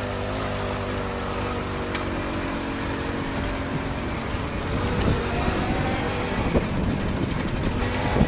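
Piaggio Ciao moped's two-stroke single-cylinder engine through a Sito Plus exhaust, running at a steady note, then about halfway through turning rougher and a little louder with a rising pitch as it is revved.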